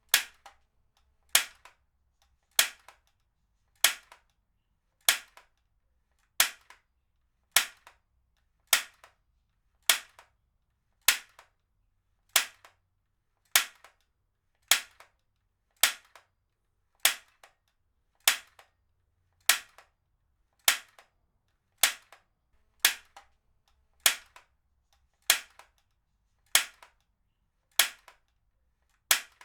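Heavy-duty stapler being fired again and again, a sharp snap for each staple at an even pace of about one every 1.2 seconds. Each snap is followed by a faint click as the handle returns.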